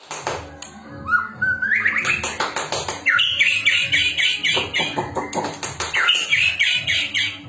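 A murai songbird singing: a rising whistled phrase, then quick runs of repeated chirping notes. Background music with a steady beat plays under it.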